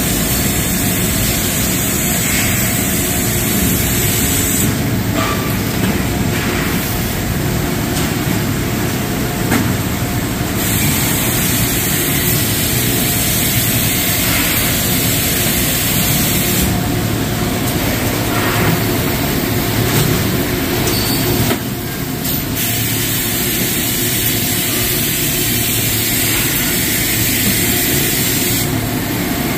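Plastics thermoforming machines running: a loud, steady industrial machine din, without letup.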